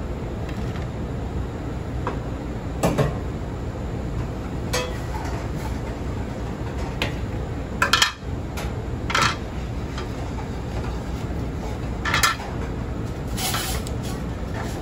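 Metal kitchen shears and plates clinking and clacking as cooked king crab legs are cut up on a steel plate: about six sharp clacks spread through, the loudest just past the middle, over a steady low background hum.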